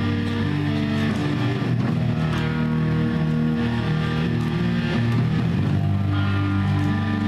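Live amplified rock band playing: electric guitars and a bass guitar holding long, sustained notes over drums.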